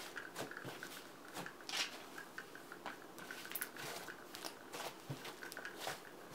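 Thick slime being stretched, folded and squeezed by hand, giving faint, irregular sticky clicks and small pops.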